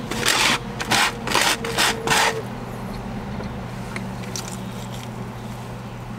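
Buttered toast rubbed across the bottom of a foam takeout container to mop up leftover egg yolk: four rough scraping strokes in the first two seconds or so, then only a steady low hum.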